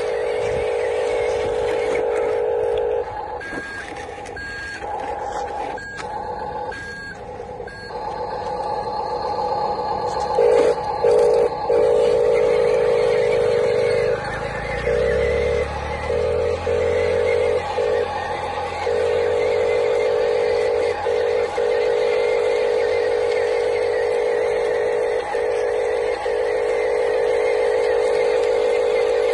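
Huina radio-controlled dump truck driving on dirt. Its electric drive gives a steady whine that cuts in and out as the throttle is worked. About three seconds in come five short electronic beeps, about one a second.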